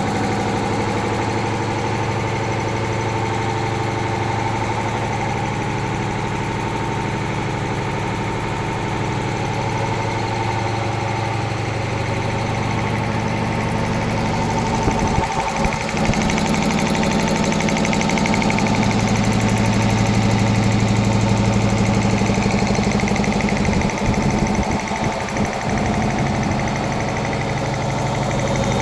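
Two-piston reciprocating air compressor driven by a 7.5 HP three-phase electric motor, running with a steady low mechanical hum. The sound is briefly disturbed about halfway through and again near the end, and is a little louder after the first break.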